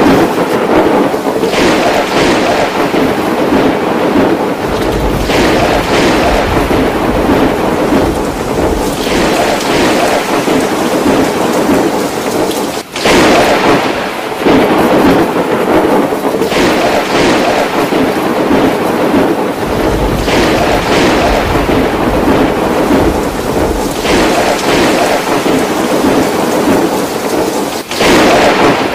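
Thunderstorm: heavy rain falling steadily, with thunder rolling and swelling again every few seconds. The sound breaks off for an instant twice.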